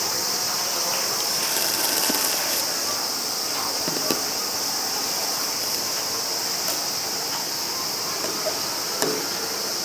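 Steady high-pitched hiss of background air noise, with a couple of faint light knocks and distant murmur of voices.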